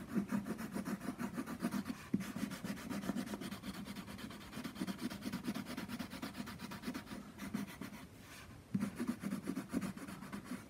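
Colored pencil shading on paper: rapid back-and-forth scratchy strokes, with a short pause about eight seconds in before the strokes resume.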